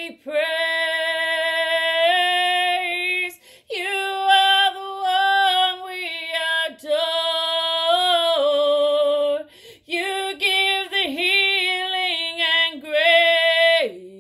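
A woman singing a worship song in long held notes with vibrato, breaking off briefly a few times between phrases.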